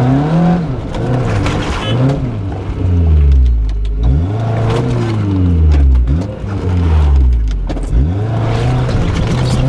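Off-road 4x4's engine revving up and down again and again, its pitch rising and falling every second or two as the throttle is worked.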